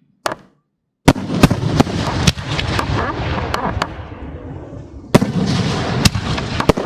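Aerial firework shells bursting in rapid succession: sharp reports with a dense crackle between them, and a fresh cluster of loud bangs about five seconds in.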